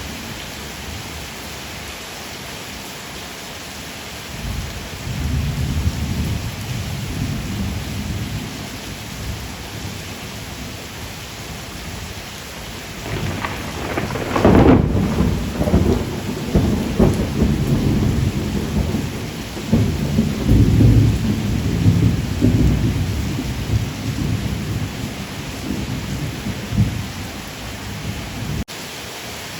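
Steady rain with thunder: low rumbles roll in a few seconds in, then a louder crack of thunder about halfway through that keeps rumbling for several seconds before dying back to the hiss of the rain.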